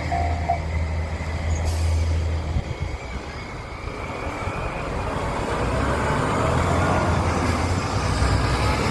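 Diesel railcar engine running with a deep, steady drone; it falls away about a third of the way through and builds up again as the train comes closer.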